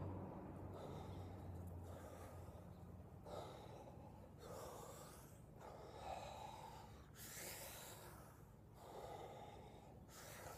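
A man breathing deeply and deliberately in a breathwork exercise: a steady run of audible breaths in and out, about one a second, from about three seconds in. A faint low hum fades out over the first few seconds.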